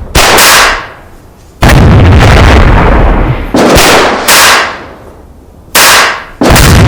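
A series of loud, sudden bangs, five in about seven seconds, each starting abruptly and dying away over a second or so.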